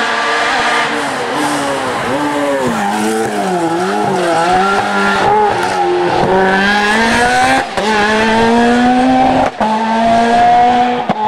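Hill-climb race car engine at high revs. The engine note wavers down and up as the car takes a bend, then rises steadily under hard acceleration. Near the end the sound breaks briefly twice for quick upshifts.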